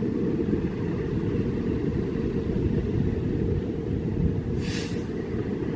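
Steady low rumble of a vehicle running, with a short hiss about four and a half seconds in.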